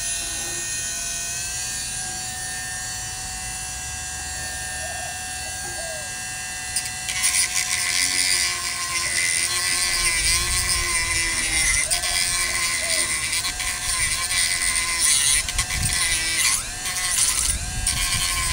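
Dremel rotary tool running with a steady high whine, then cutting into the end of the antenna tube about seven seconds in: louder, with a rough grinding hiss, its pitch dipping and wavering as the tool is loaded.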